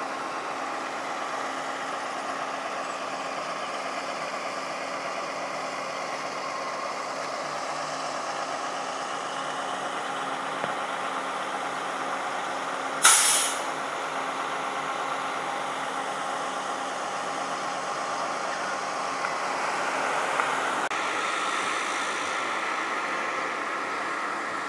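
Street traffic noise with a vehicle engine running steadily, and a short loud hiss about halfway through.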